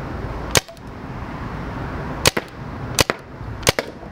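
Tippmann TMC paintball marker firing four sharp pops: one about half a second in, then three more in quicker succession about 0.7 s apart, each followed by a faint second click.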